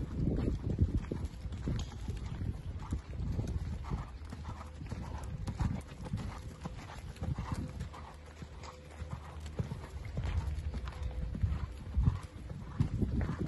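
A horse cantering on a sand arena: dull, repeated hoofbeats on the sand.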